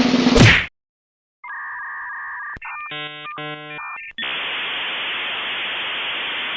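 A string of electronic sound effects. A loud noisy burst ends about half a second in, followed by a short silence. Then comes a steady two-note electronic tone, a quick run of electronic beeps, and about two and a half seconds of static hiss that cuts off suddenly.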